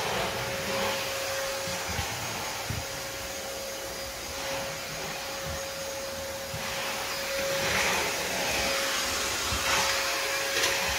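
A motor running steadily: an even rushing hiss with one constant hum, with a few soft thumps that fit footsteps on a hardwood floor.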